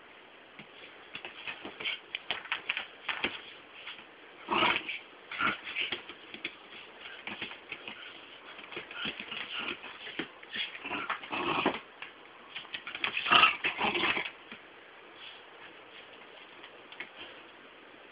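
A dog whimpering amid clicks and scuffles, in bursts; the loudest burst comes about three quarters of the way through, and the last few seconds are quieter.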